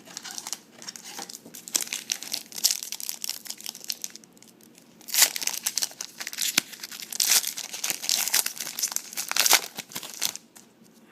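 A trading-card pack wrapper being crinkled and torn open by hand, in irregular crackling rustles with a few louder crinkly spells about halfway through and near the end.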